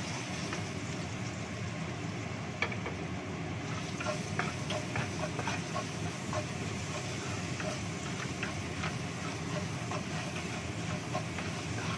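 Wooden spatula stirring and tapping against a nonstick wok as garlic and pepper paste fries in oil, with light sizzling and irregular clicks of wood on the pan. A steady low hum runs underneath.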